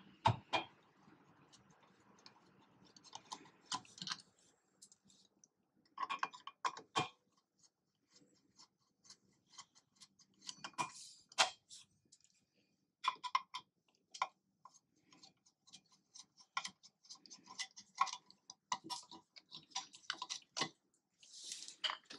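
Irregular light clicks and ticks of a hand Torx T25 screwdriver backing out the screws of the cover plate over a trailer wiring socket, with the plate and screws being handled.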